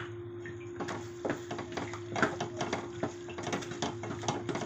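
Wooden spatula scraping and knocking against a stainless steel pot while stirring thick beef curry, in quick irregular strokes, over a steady low hum.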